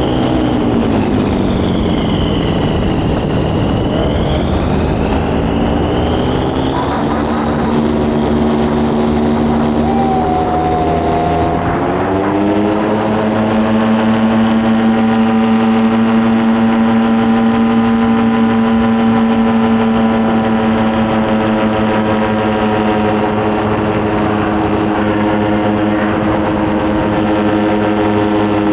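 An engine running. Its pitch dips and climbs back in the first few seconds, rises again about twelve seconds in, and then holds a steady speed.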